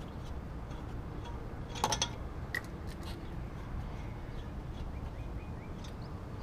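Lug nuts being spun off a car wheel by hand, with a short cluster of metallic clicks about two seconds in and one more click shortly after, over a steady low background rumble.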